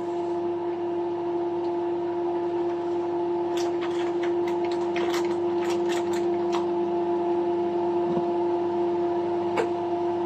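Microwave oven running with a steady hum, with a run of light clicks and taps from kitchen utensils about halfway through.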